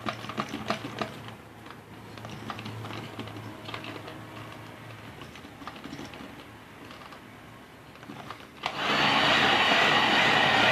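Irregular light clicks and knocks of utensils against a mixing bowl, then, near the end, an electric mixer switches on suddenly and runs steadily, much louder, beating cupcake batter.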